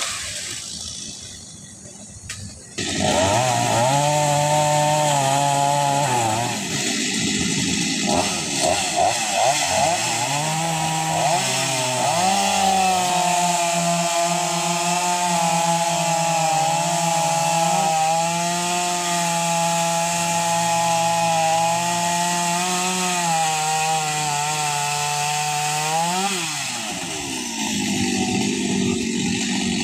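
Chainsaw running: it revs up about three seconds in, surges unevenly for a few seconds, then holds a steady high speed while cutting through a fallen tree, and drops back near the end.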